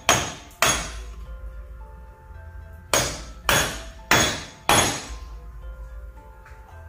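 A hammer strikes a large socket set on top of a wheel bearing, driving the greased bearing evenly into a wheel hub held in a vise. There are six sharp metallic blows: two at the start, then after a pause of about two seconds, four more about half a second apart.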